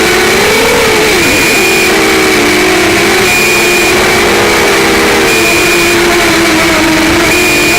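The brushless motors and propellers of a QAV200 FPV racing quadcopter whine in flight over a steady hiss, the pitch wavering with the throttle. A faint high beep repeats about every two seconds.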